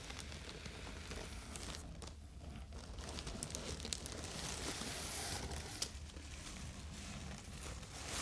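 Clear plastic packaging crinkling and rustling as clothing is lifted out of a cardboard box. The rustling grows louder and brighter about halfway through.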